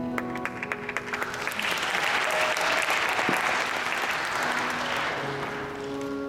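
Audience applauding: scattered claps that swell into dense clapping a second or two in, then die away near the end.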